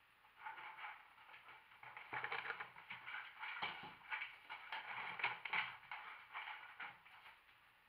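A dog's claws scratching and clicking on the floor and door mat as it scrabbles and paces, in quick irregular bursts.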